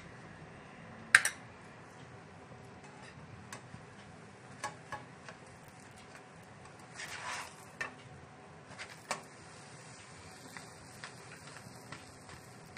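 Kitchen utensils knocking and scraping on a nonstick frying pan as a spatula turns a toasting sandwich over: one sharp click about a second in, a few lighter taps, and a short scrape past the middle, over a faint hiss.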